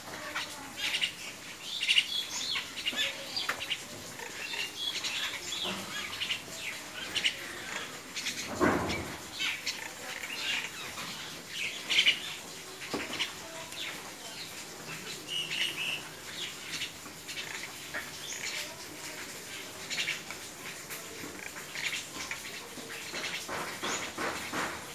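A small flock of jungle mynas calling, with many short, high chirps and chatters scattered throughout. A brief whoosh about nine seconds in.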